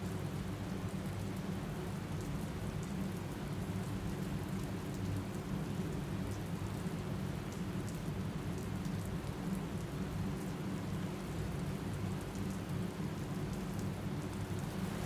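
Steady rain falling, an even hiss with a deep rumbling undertone and faint scattered drop ticks.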